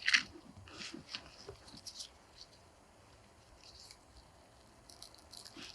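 Faint, scattered scratching and rustling, with light clicks, as of soil and dry twigs being disturbed. It is busier in the first two seconds and again near the end.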